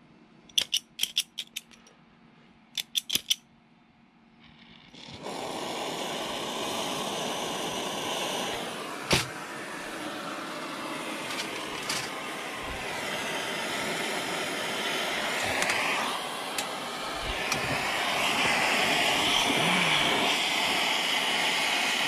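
Two quick runs of sharp clicks, then compressed gas from a regulated cylinder setup hissing steadily from about five seconds in, getting a little louder near the end.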